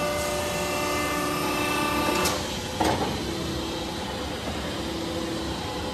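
PVC pipe extrusion line machinery running: a steady mechanical hum with several constant whining tones. The whine drops out about two seconds in, a short clunk follows just before three seconds, and then a lower steady hum with a hiss carries on.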